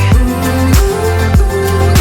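Background pop/R&B song with a steady kick-drum beat and deep bass, in a gap between sung lines.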